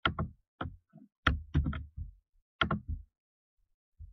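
Sharp clicks and taps from a computer mouse and keyboard, a dozen or so in irregular clusters with short gaps between them.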